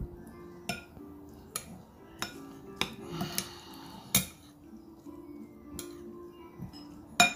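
Metal spoon clinking and scraping against a ceramic bowl while stirring a wet mix of chopped tomatoes and onions, in about ten irregular knocks with the loudest near the end.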